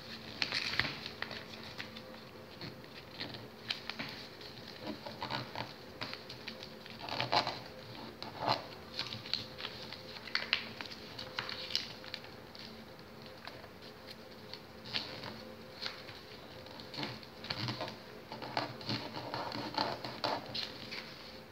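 A sheet of printed paper rustling and crinkling as hands fold it and press the creases down on a tabletop, in short irregular rustles.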